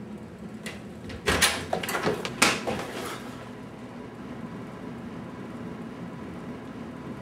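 A short run of sharp knocks and clatter, like a door being worked, starting about a second in and lasting under two seconds. After it comes a low steady room hum.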